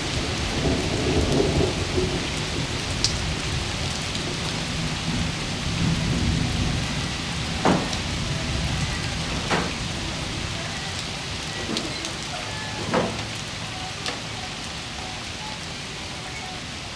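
Steady rain with low rumbles of thunder in the first half, and a few sharp clicks in the middle, easing off slightly toward the end.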